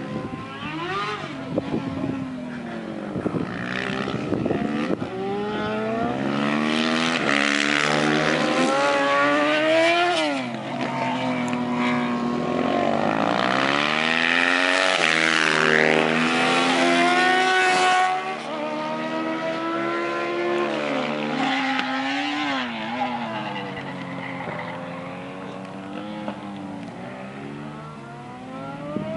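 Several motorcycles running on a race circuit, their engines revving up and down through the gears as they pass, often more than one at once. The sound is loudest in the middle and drops away about two-thirds of the way through, fading further toward the end.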